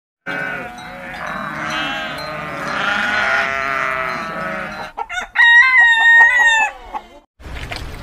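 A herd of goats bleating, many overlapping wavering calls for about five seconds. Then a rooster crows once, a long loud cock-a-doodle-doo of about a second and a half.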